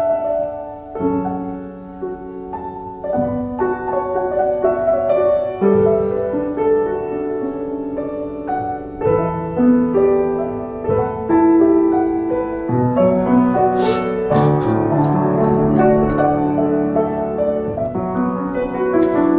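Steinway grand piano being played: a slow melody over sustained chords that change every second or two. A few faint clicks come about two-thirds of the way through.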